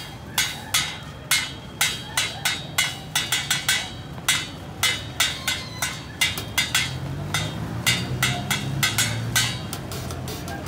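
Street drumming on an improvised kit of metal pots, pans, tins and plastic buckets struck with sticks: a steady beat of about two to three hits a second with a quicker run in the middle, each hit with a short metallic ring. The hits stop shortly before the end.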